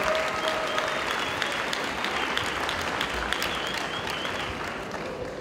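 Audience applauding, a dense patter of many hands clapping that tapers off toward the end.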